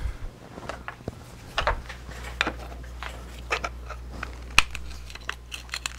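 Armature of a brushed pancake DC motor being worked out of its housing against the pull of strong neodymium magnets: scattered clicks and light metal knocks, the sharpest about four and a half seconds in.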